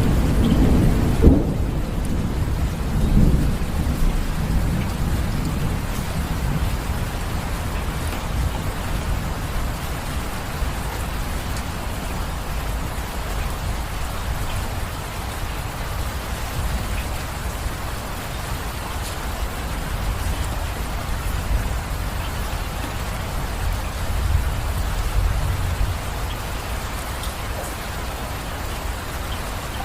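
Steady rain falling, with thunder: a sharp crack about a second in, low rolling rumbles over the next few seconds, and a softer low rumble near the end.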